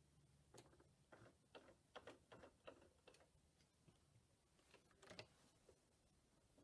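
Near silence with faint, irregular light clicks, a few a second in two clusters, from slow work at a Brother PQ1500SL sewing machine and the quilt being handled under its presser foot. A low hum stops about a second in.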